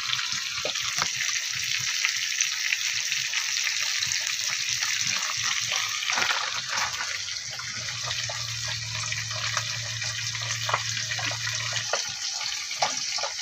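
Semolina-coated fish frying in hot oil in a pan: a steady sizzling hiss with scattered small crackles. A low hum joins for a few seconds past the middle.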